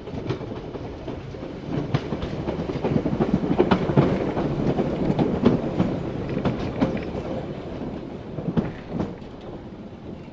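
Island Line Class 483 electric train, ex-1938 London Underground tube stock, running past along the platform. Its wheels clatter with a rapid run of clicks over a low rumble, growing to a peak midway and then fading as the train goes by.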